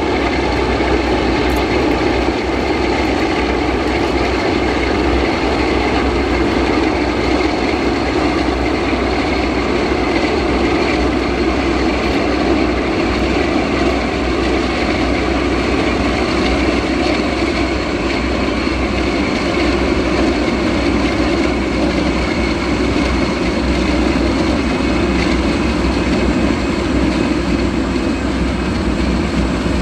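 Aircraft engines running steadily at close range: a loud, even noise with a few thin, steady whining tones over it, neither rising nor falling.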